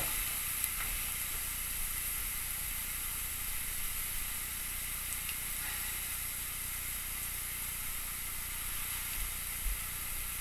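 Two steaks sizzling steadily as they sear on the ribbed side of a hot cast iron griddle pan.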